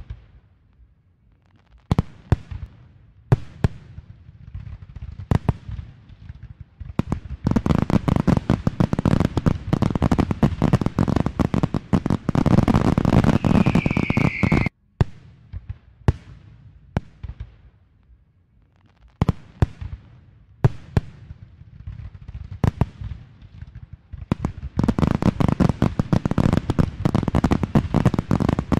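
Fireworks display: single shell bursts bang a second or two apart, then build into dense crackling barrages. Near the middle a falling whistle sounds over the barrage, and everything cuts off suddenly before the separate bangs start again.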